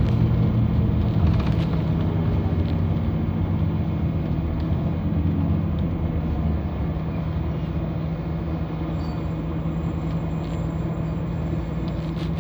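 City bus engine running, heard from inside the passenger cabin: a steady low drone whose pitch settles slightly lower over the first few seconds.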